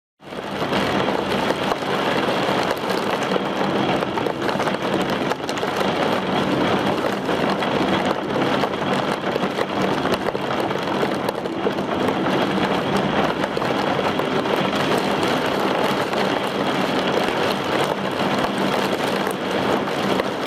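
Heavy rain and gusting wind of a supercell thunderstorm: a dense, steady rush that cuts in abruptly at the start.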